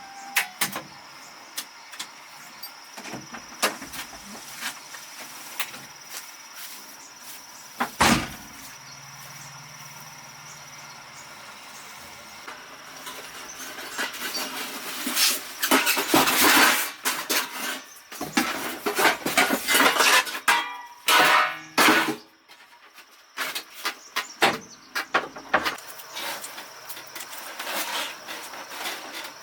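Hand-tool workshop noise: scattered clicks and taps, a sharp knock about eight seconds in, then long bursts of scraping and rubbing in the second half.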